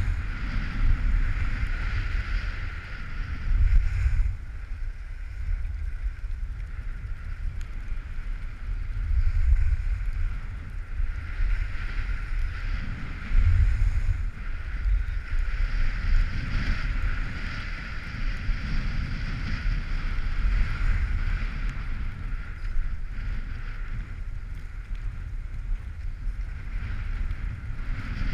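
Wind buffeting the microphone of a skier's action camera during a downhill run, a low rumble that swells in gusts, over a steady hiss of skis sliding on packed snow.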